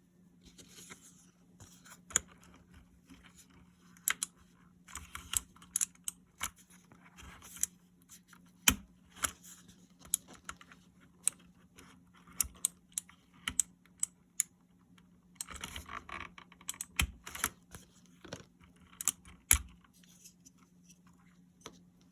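Spacebar keycap being worked off a mechanical keyboard: irregular plastic clicks and snaps as the keycap and its stabilizer wire are pried loose, with handling and scraping between them and a few louder snaps.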